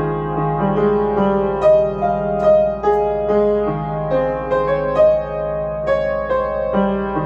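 Upright piano playing a song arrangement: a melody of struck notes over held bass notes and chords, the notes ringing into one another.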